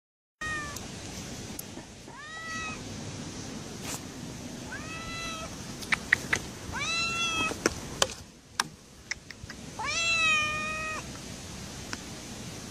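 Striped tabby kitten meowing about five times, each call rising at its start and then held, the last one about ten seconds in lasting about a second. A few sharp taps fall around the middle.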